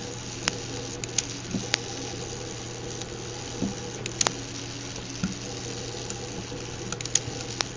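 Light, scattered clicks and taps from hands fitting a small electronic component into its wiring, over a steady low hum.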